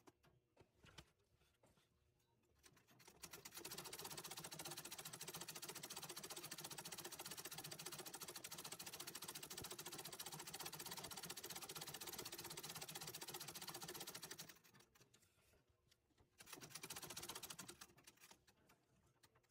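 Antique treadle sewing machine stitching freehand embroidery: one long steady run of about eleven seconds starting a few seconds in, a pause, then a short run of a second or so near the end.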